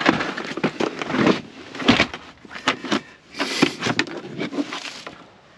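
Screws and small hardware being rummaged through and handled: clinking, rattling and rustling in several short bursts, dying down near the end.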